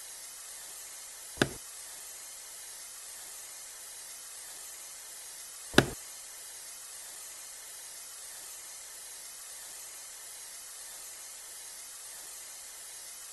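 Two sharp knocks about four seconds apart as the plastic eye spa massager and its refill bottle are handled, over a steady hiss.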